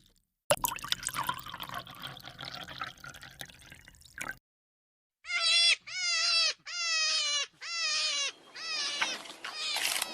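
For about four seconds an irregular, scratchy noise, then, after a short gap, a young goat or lamb bleating six times in quick succession, high calls each about half a second long that drop in pitch at the end.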